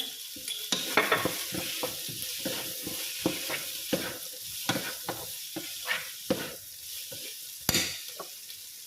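Vegetables (carrots, potatoes and green beans) sizzling in a pan as they are stirred. A utensil scrapes and knocks against the pan over and over, with one louder knock near the end.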